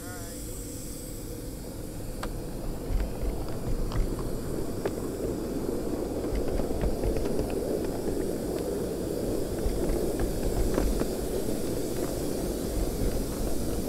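Miniature live-steam locomotive getting under way: a steady hiss of steam over the rumble of wheels on the track, with scattered sharp clicks, growing louder over the first several seconds as it gathers speed.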